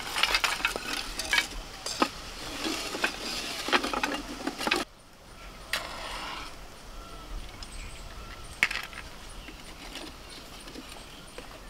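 Thin dry sticks and split firewood clattering and knocking as they are fed into a clay wood-fired stove, with many sharp clicks for about five seconds. After a sudden break, a matchstick is struck and flares, followed by a few light knocks.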